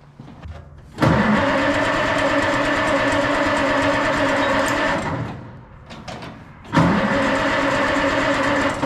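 Oliver 77 tractor's six-cylinder gasoline engine being cranked by its starter without catching: one run of about four seconds, then a second crank near the end. A hard start that the owner suspects comes from lost spark in the points-and-condenser ignition.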